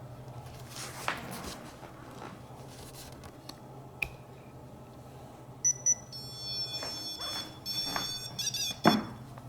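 Electronic ghost-hunting gadget sounding off: two short high beeps, then a couple of seconds of high electronic tones ending in a brief warble, over a low steady hum. A few faint knocks, and a sharper knock near the end.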